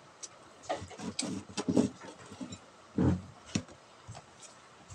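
Close mouth sounds of a person eating boiled cassava: chewing with wet smacks and sharp clicks, in bursts about a second in and again around three seconds.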